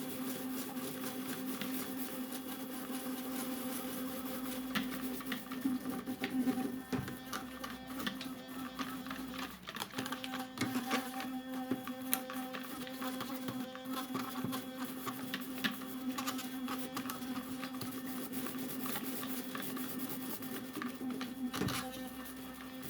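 Electric toothbrush buzzing steadily as it scrubs the typewriter's type arms, with irregular clicks and taps of the brush head against the metal. The buzz breaks off briefly about ten seconds in.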